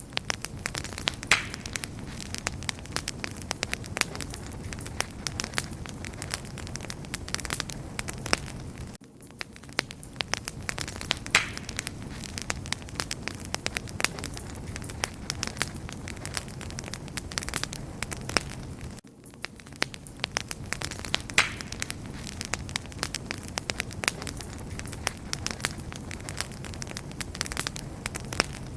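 Wood fire crackling: a dense run of sharp pops and snaps over a steady low rumble of burning. The sound loops about every ten seconds, with a brief drop in level at each join.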